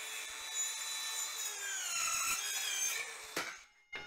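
DeWalt DCS571N 18V brushless mini circular saw running a 45-degree bevel cut through a softwood fence board. Its steady motor whine and the blade in the wood dip slightly in pitch about two seconds in, then stop with a knock about three and a half seconds in.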